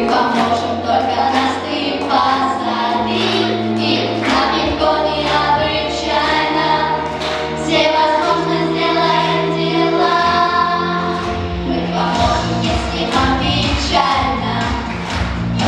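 A group of schoolchildren singing a song in chorus over instrumental accompaniment with a sustained bass line.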